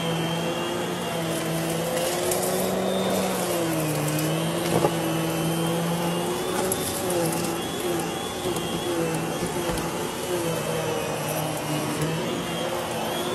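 Vacuum cleaner running with its lit floor head pushed over carpet, a steady hum whose pitch wavers and dips as the head moves. A single sharp click about five seconds in.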